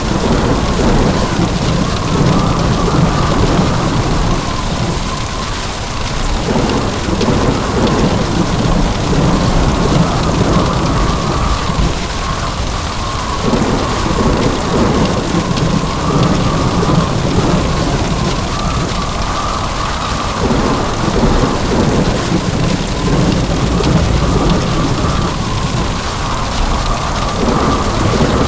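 Heavy rain pouring steadily, with low thunder rumbles that swell and fade several times.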